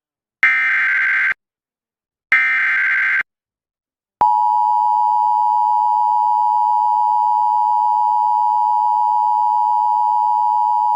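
Emergency Alert System broadcast signal: two SAME header data bursts, each a buzzy, modem-like squawk about a second long with a short gap between, then about four seconds in the steady two-tone EAS attention signal (853 and 960 Hz sounded together) starts and holds, heralding a National Weather Service severe thunderstorm warning.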